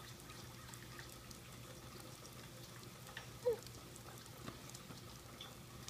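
Light rain falling steadily, a soft even hiss with scattered faint drip ticks. About three and a half seconds in comes a child's brief vocal sound that falls in pitch.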